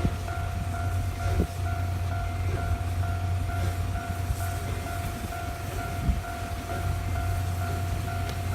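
Japanese level-crossing alarm ringing in a steady, even rhythm over the low, steady rumble of a passing train, with a few faint knocks from the wheels.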